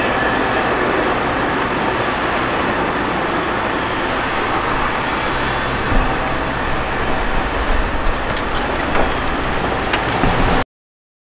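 Steady rumble and hiss of an LIRR M-3 electric train approaching a grade crossing from a distance, the low rumble growing heavier in the second half. It cuts off suddenly near the end.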